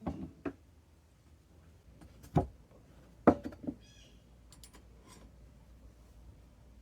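A few scattered knocks and thumps, the loudest about two and a half and three and a half seconds in, with a brief high chirp soon after.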